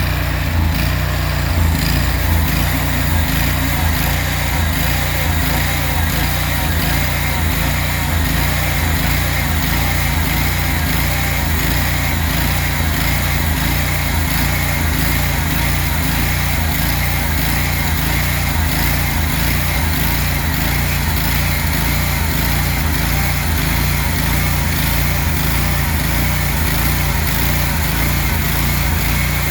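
Bandsaw sawmill running steadily, its engine and band blade sawing through a log.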